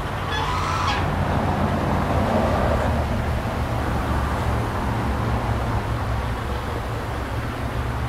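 Chinese goose honking once about half a second in, then giving a rougher, lower call for a couple of seconds: a territorial warning. A steady low rumble runs underneath.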